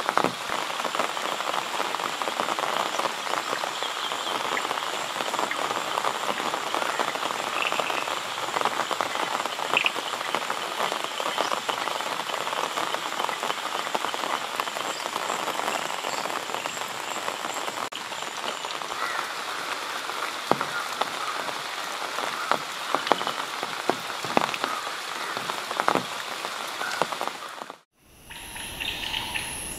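Steady rainfall with many individual drops tapping. It cuts off suddenly near the end, leaving a quieter high insect trill.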